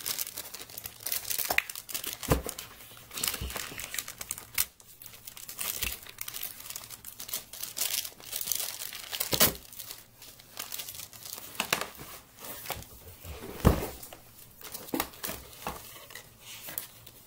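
Clear plastic bag crinkling and rustling as it is handled and pulled open, with a few sharp knocks from items bumping on the tabletop.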